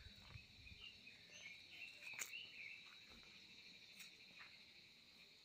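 Faint outdoor ambience of insects: a steady high-pitched drone, with a few short wavering chirps between about one and three seconds in.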